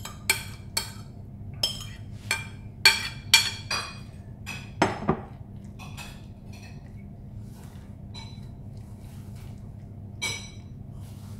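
Metal spoon clinking and scraping against ceramic dishes as coleslaw is scraped from a bowl onto a plate and spread out: a quick run of sharp clinks over the first five seconds, then sparser, fainter taps, with one more clear clink near the end.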